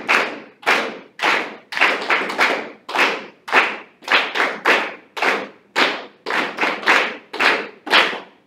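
A group of students clapping a rhythm exercise together in time, mostly about two claps a second with some quicker pairs, each clap with a short echo.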